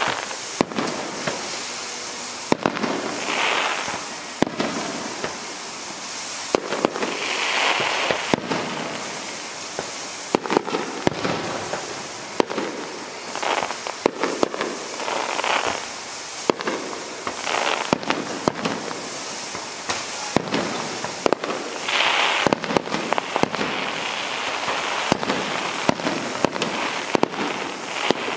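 Fireworks display: a rapid, irregular run of sharp bangs from bursting shells, several a second at times, over a continuous noisy background.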